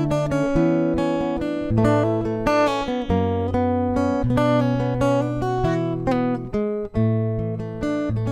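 Background music: an acoustic guitar strumming and picking chords, with the chord changing about every second.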